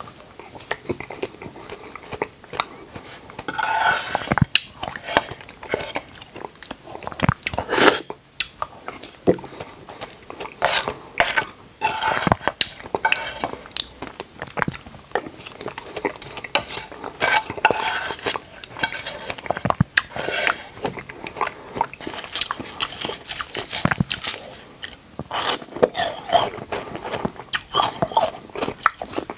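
Close-miked eating sounds of dragon fruit: a person biting and chewing, with many irregular sharp clicks and small crunches.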